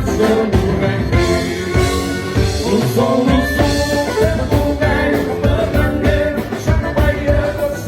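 Live gaúcho dance band playing a baile number, with a steady beat from drums and bass under melodic instruments.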